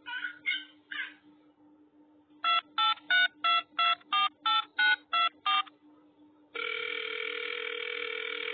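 Telephone keypad dialing tones: about ten short beeps in quick succession, roughly three a second, then a steady tone lasting about two seconds. At the start, a cat gives three short meows.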